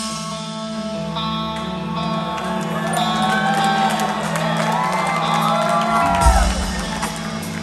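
Live band music: held keyboard and electric guitar chords, with audience members whooping and whistling over it in the middle. Heavy drum beats come in near the end.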